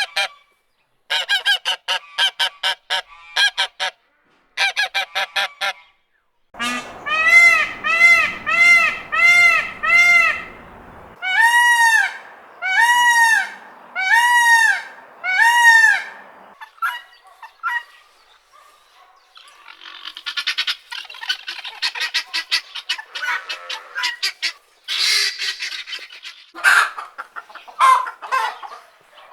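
Farm poultry calling in turn. It opens with short bursts of rapid chattering calls, then a series of loud honks comes about once a second, typical of geese. It ends in softer, busier clucking and chatter.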